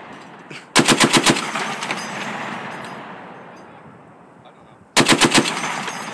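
A HMMWV-mounted M2 .50 caliber heavy machine gun firing two short bursts of about five or six rounds each, the second about four seconds after the first. Each burst leaves a long echo that fades across the range.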